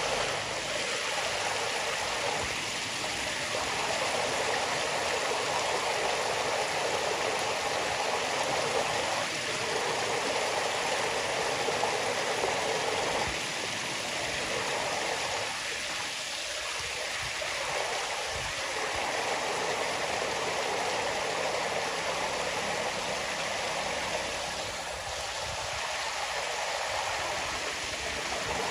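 Shallow stream running over stones: a steady rush of flowing water.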